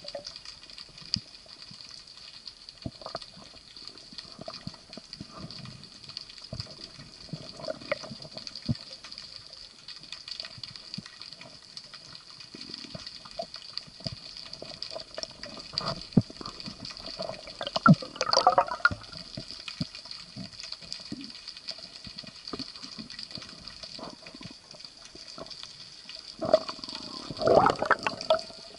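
Underwater ambience picked up by a diver's camera: a steady high hiss with scattered clicks and crackles, and two louder bursts of rushing, bubbling water, one about eighteen seconds in and a longer one near the end as the diver moves up toward the surface.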